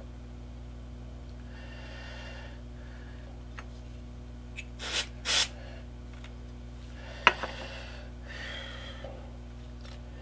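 Two short hisses from an aerosol super-glue accelerator (activator) can, about half a second apart, sprayed onto fresh glue joints to set them instantly. About two seconds later comes a sharp click, over a steady low hum.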